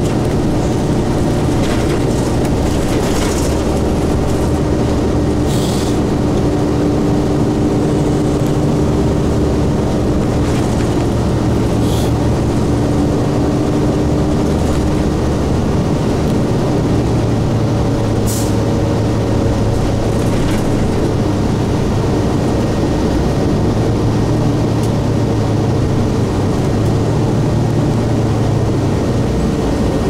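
2002 Blue Bird 40-foot transit bus with a Cummins ISC inline-six diesel running, heard from inside the passenger cabin. The engine note shifts about halfway through, and a few short rattles come through.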